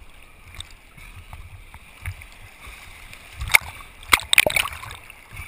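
Seawater sloshing and splashing around a half-submerged action-camera housing, with a sharp click about three and a half seconds in and a quick run of clicks just after four seconds.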